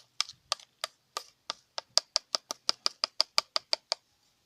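A utensil clicking against a bowl as the slime mixture is stirred: a regular run of sharp clicks that speeds up about halfway through and stops near the end.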